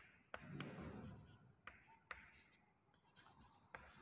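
Chalk writing on a chalkboard: faint scratching strokes, with a few sharp taps as the chalk meets the board.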